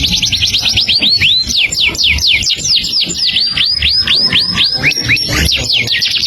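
A songbird singing a continuous, rapid series of sweeping whistled notes, about six a second, without a break.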